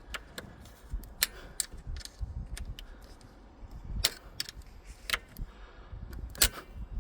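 Irregular clicks and small knocks of plastic and metal parts being handled as a Ford steering column ignition lock actuator is taken apart, the green plastic piece being worked out of the housing. The sharpest clicks come about four, five and six and a half seconds in.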